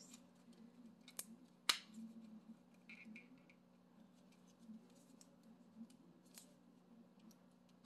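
Faint clicks and scratches of hands working at a small cardboard lipstick box to open it, with two sharp clicks a second or so in.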